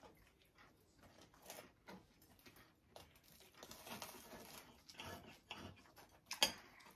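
Faint scratching and crackling of a knife and fork cutting through a baked, flaky pastry slice on a plate, with scattered small clicks and one sharper click near the end.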